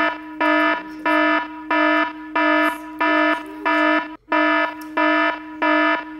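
Loud electronic alarm-like beeping: a buzzy pitched tone pulsing about twice a second, with a brief break about four seconds in.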